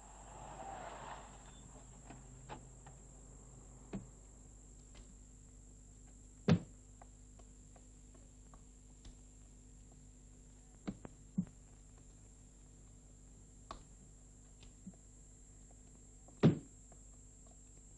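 Doors shutting: one loud thud about six seconds in and another near the end, with a few fainter knocks and clicks in between.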